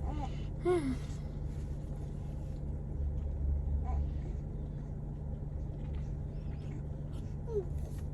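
Steady low hum of a car inside its cabin, with a baby's brief fussy vocal sounds near the start and again near the end.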